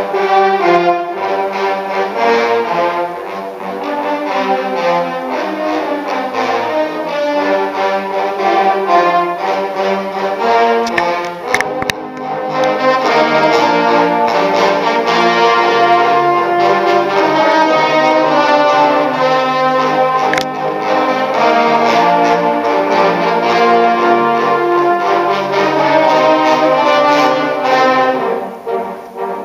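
A large trombone ensemble playing a mash-up live, many trombones sounding sustained chords with moving lines. A few sharp clicks come about midway, and the music gets quieter near the end.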